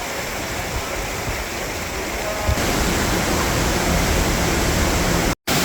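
Waterfall rushing: a steady, loud wash of falling water, which gets louder and brighter about two and a half seconds in.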